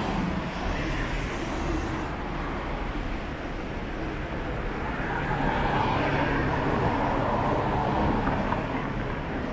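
Street traffic noise, with a vehicle going by that is loudest about halfway through and on until near the end.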